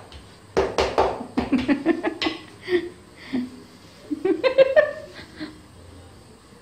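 A person laughing in quick pulsed bursts. The laughter comes in two bouts, the second, about four seconds in, higher-pitched.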